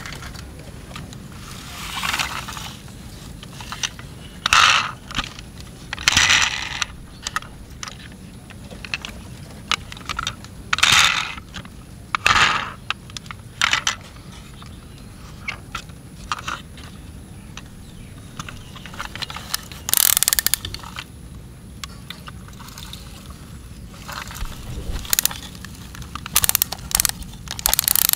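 Plastic toy fire trucks being handled: short ratcheting scrapes and clicks as the toy ladder is turned and raised, with a quick run of clicks near the end.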